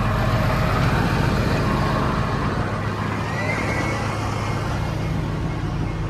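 John Deere tractor's diesel engine running steadily at idle with its hydraulics switched on.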